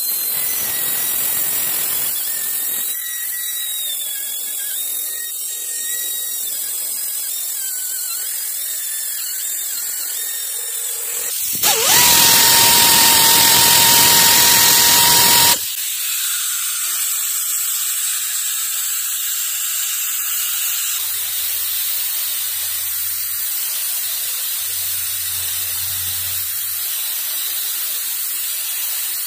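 Compressed-air blow gun hissing steadily as it blows metal chips off a lathe-turned hydraulic pump part, with a louder, fuller blast lasting about four seconds before the middle.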